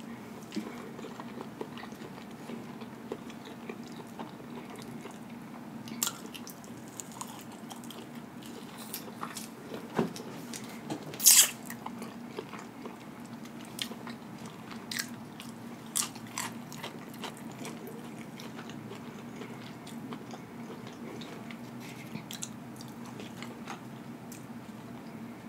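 Close-up eating sounds: quiet chewing with scattered sharp little clicks and crackles as lettuce leaves are pulled off a burger, the loudest about eleven seconds in, over a faint steady hum.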